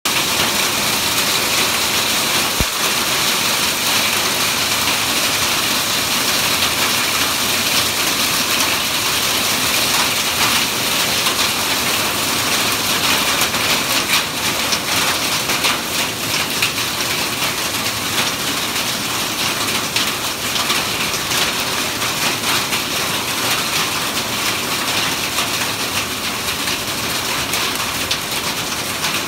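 Hail falling steadily: a dense pattering of many small stones striking the ground and plants.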